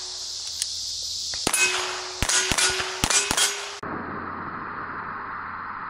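A quick string of gunshots, about seven in two seconds, each followed by the ringing clang of a struck steel target plate, which signals a hit on speed steel.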